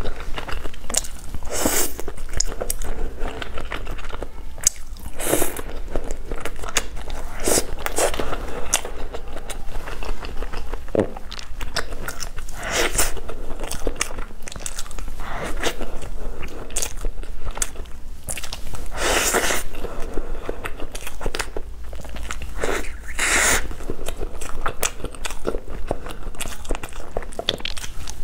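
Close-miked eating sounds: a person biting and chewing food, with short, irregular bites and chews following one another.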